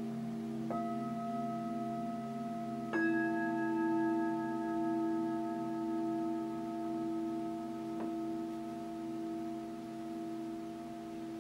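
Tibetan singing bowls struck with mallets, several long ringing tones overlapping and slowly fading, the lower ones pulsing. A bowl is struck about a second in and a louder, higher-pitched one about three seconds in.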